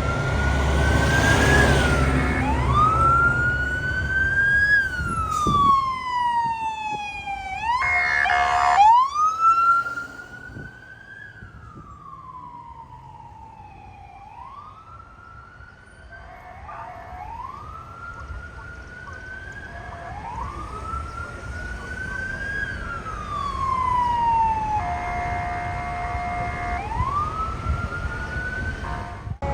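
Fire apparatus siren wailing in repeated sweeps, each rising quickly and falling slowly, with air horn blasts about eight seconds in and a longer one near the end. The truck's engine rumbles loudly in the first few seconds as it passes close.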